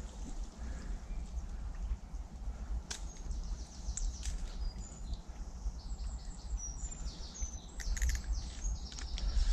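Small birds chirping and whistling in quick high phrases, busiest in the second half, over a steady low rumble on the microphone. A single sharp click comes about three seconds in.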